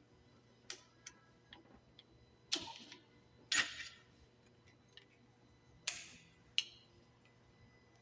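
Sharp clicks and clinks of metal tools and brake caliper parts being handled, with louder clanks that have a short ring at about two and a half, three and a half and six seconds in.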